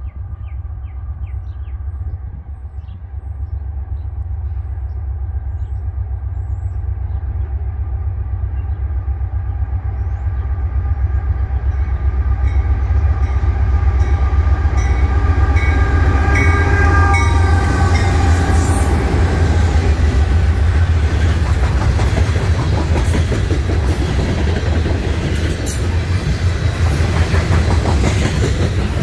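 Norfolk Southern diesel locomotive approaching and passing at the head of a loaded coal train. A low rumble grows steadily louder, with a steady tone that drops in pitch as the locomotive goes by about two-thirds of the way in. Loaded coal hopper cars then roll past with clattering wheels.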